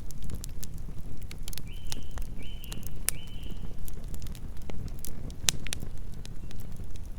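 Campfire burning, with frequent sharp crackles and pops from the wood over a low steady rumble. Between about one and a half and three and a half seconds in, an animal gives three short high calls.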